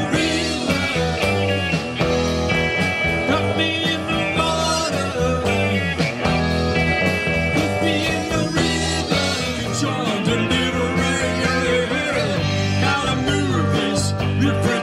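Live rock band playing electric guitars, bass and drums, with sustained guitar notes that bend in pitch.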